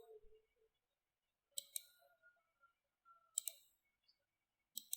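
Near silence broken by three quick double clicks of a computer mouse, spaced about a second and a half apart.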